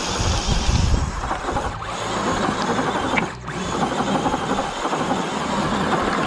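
Axial Bronco RC crawler's electric motor and geared drivetrain running under load as it climbs loose rocky dirt, its tires scrabbling and flinging dirt. The noise eases briefly about halfway through.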